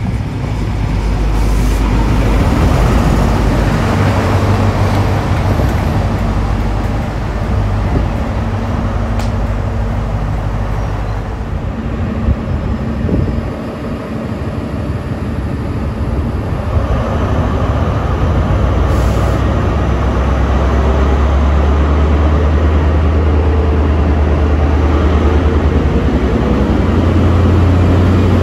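Class 43 HST diesel power car engines running: first a set running along the station platform, then, after a cut, a power car's engine close by with a deep steady hum that grows louder near the end as it draws past.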